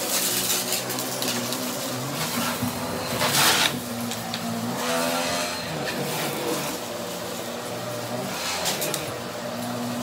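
AirVac central vacuum running with a Riccar powerhead, its brush motor humming steadily over the rush of suction as it picks up a spread-out mess, with a louder surge of rushing air about three seconds in.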